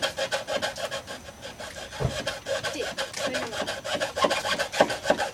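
Handsaw cutting through a piece of wet wood in quick, rasping strokes, with a knock about two seconds in.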